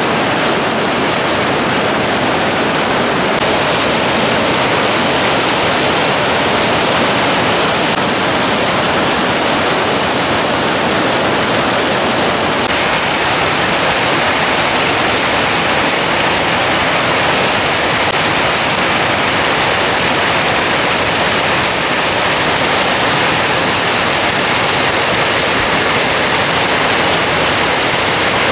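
Fast, full mountain river rushing over rocks in white-water rapids, then a small brook cascading over mossy stones: a steady, loud rush of water that shifts slightly in tone about three seconds in and again about twelve seconds in.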